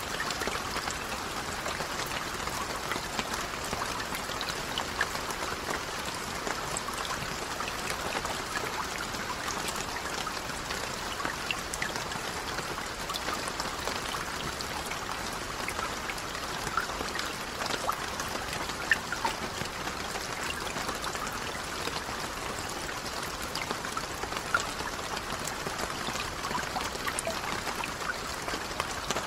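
Steady rain falling on lake water: an even hiss sprinkled with many small drop splashes.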